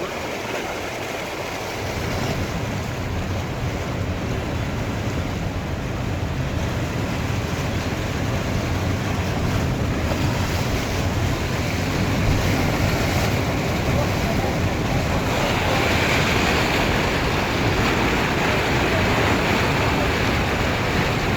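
A car pushing through deep floodwater: water rushing and splashing against the car. It grows louder about two seconds in and again after about fifteen seconds.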